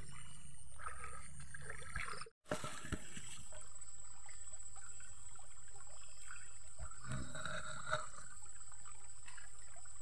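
Shallow forest stream trickling over stones, with a steady high-pitched tone above it. The sound cuts out for a moment about two seconds in.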